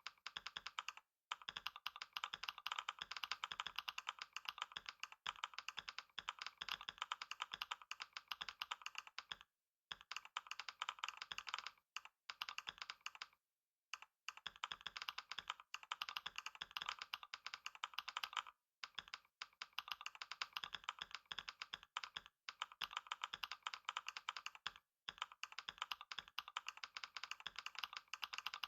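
Fast continuous typing on a computer keyboard during a typing test: a dense stream of key clicks, broken by short pauses every few seconds.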